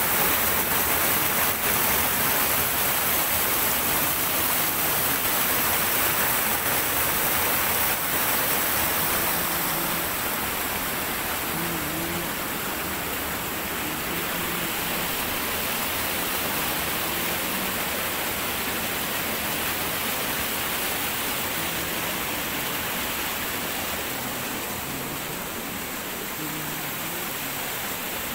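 Rushing water of a rocky mountain stream spilling over boulders, a steady rush that softens a little after about nine seconds.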